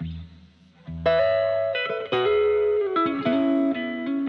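Background music led by guitar, a run of held notes changing in steps, with a brief drop in level near the start.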